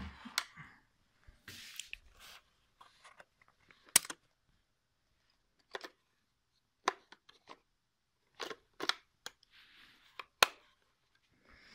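Hands handling a Blackmagic Pocket Cinema Camera 4K body: scattered sharp clicks and short rustles as the battery door on its grip is opened to pull the battery from the frozen camera. The loudest clicks come about 4 seconds in and again near the end.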